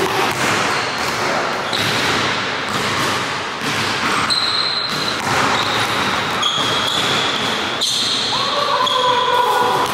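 Basketball bouncing on a hardwood gym floor during a one-on-one game, echoing in the hall. There are repeated sharp bounces and short high squeaks, most of them in the second half.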